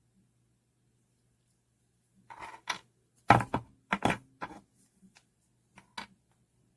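Black Fox Bean Gen 2 folding knife being handled and worked after a pivot-screw adjustment: a run of sharp clicks and knocks starting about two seconds in, the loudest two about a second apart, then a few lighter ticks.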